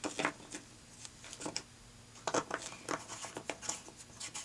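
A string of small, irregular clicks and rustles from hands moving about at the fly-tying vise, bunched most thickly in the middle.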